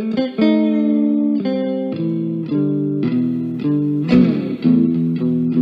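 Background music: a melody of plucked guitar notes, with a quick run of notes about four seconds in.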